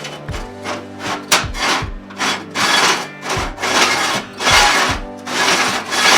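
Repeated long rasping strokes of hand work such as filing or sawing, starting about two seconds in, over background music with a steady beat.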